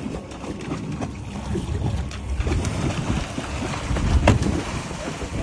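Wind buffeting the microphone over the running of a small fishing boat on the water, with one sharp knock about four seconds in.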